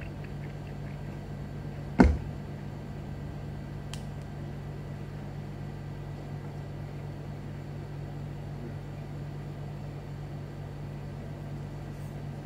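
Small plastic toy pieces being handled and fitted together by hand, with one sharp click about two seconds in and a faint tick a couple of seconds later, over a steady low appliance hum.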